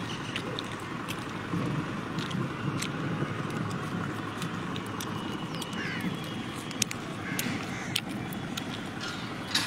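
Outdoor roadside ambience: a steady rumble of traffic and wind, with scattered faint clicks and a few short bird calls past the middle.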